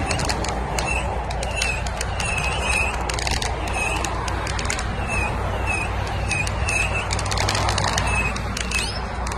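Fireworks crackling and popping in quick irregular clicks, over a steady low rumble.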